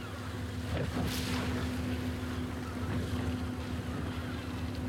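Boat engine running with a steady low hum, over water and wind noise; a brief rush of noise about a second in.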